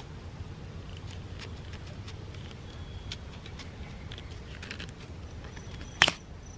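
Faint clicking of a bicycle's Grip Shift twist shifter being turned by hand, a shifter stuck so that it will not shift back up. About six seconds in comes one loud sharp snap as the two halves of the grip shift are pulled apart.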